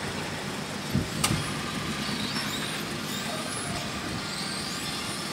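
Small radio-controlled racing cars running on asphalt, their motors whining up and down in pitch as they speed up and slow down. Two sharp knocks come about a second in.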